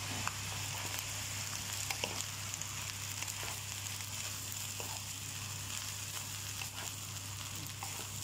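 Fried rice sizzling in a nonstick wok as it is stirred and tossed with a wooden spatula, with scattered light clicks and scrapes of the spatula against the pan, over a steady low hum.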